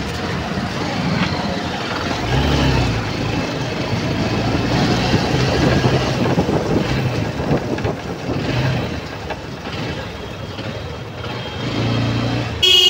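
Motorbike riding through city street traffic: engine running under steady road and traffic noise, with a short horn beep near the end.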